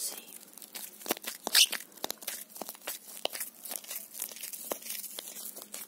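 A white cloth wrap handled and crumpled close to the microphone, giving a run of crisp crackles and crinkles, loudest about a second and a half in.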